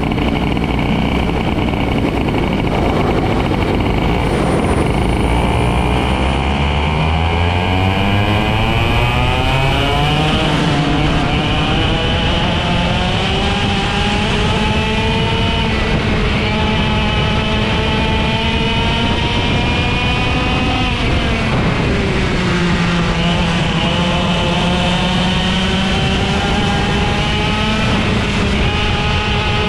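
IAME X30 125cc two-stroke kart engine running at race speed, loud and continuous. Its pitch climbs steadily for several seconds as the kart accelerates, holds high, drops briefly for a corner about two-thirds through, then climbs again and dips near the end.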